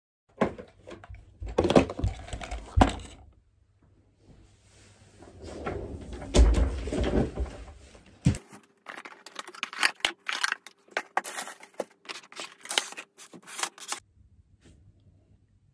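Rustling and handling noise as things are moved about on a desk. From about nine seconds in comes a fast run of sharp clicks and taps as small gel polish bottles and nail tools are handled, which stops a couple of seconds before the end.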